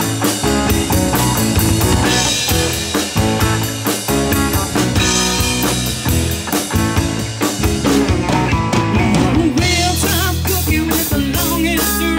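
Live rock band playing: drum kit, electric guitars and keyboard through a PA, with a woman's singing voice in the last few seconds.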